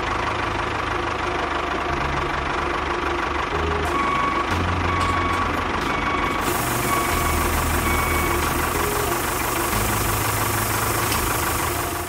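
A small engine running steadily.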